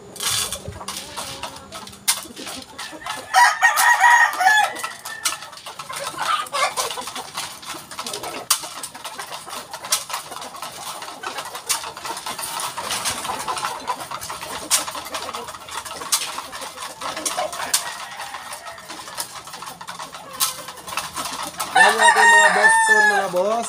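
Caged Boston Roundhead gamecocks crowing: one crow about three seconds in and a louder one near the end, with scattered sharp taps in between.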